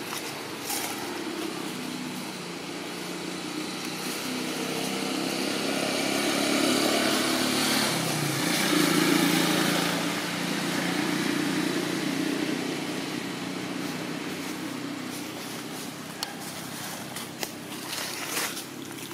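A motor vehicle engine running, growing louder to a peak about halfway through and then fading as it passes by.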